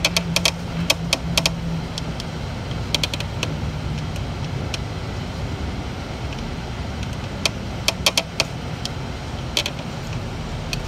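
City bus driving, its engine and road noise a steady low rumble with a low hum that fades out about two seconds in. Several quick bursts of sharp clicking rattles break in: at the start, about three seconds in, and twice near the end.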